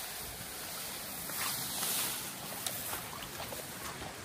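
Steady rush of a mountain river's flowing water, with a few brief clicks.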